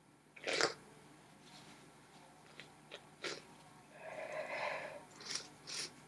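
A woman sneezing in a fit: a sharp sneeze about half a second in, a shorter one a few seconds later, then a voiced gasping breath followed by two quick breathy bursts near the end.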